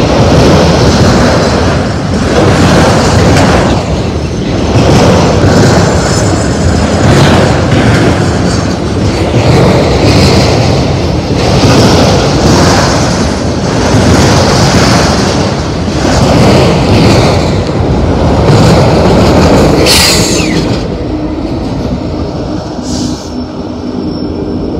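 Autorack freight cars rolling past close by, their steel wheels clattering on the rails in swells every second or two as each car goes by. A brief high squeal comes about twenty seconds in, and the clatter then eases off near the end.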